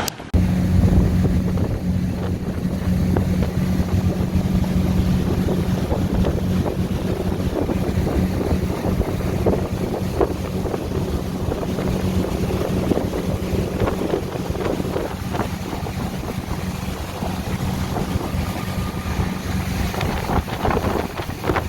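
Motorboat engine running at a steady pitch, with wind rushing over the microphone.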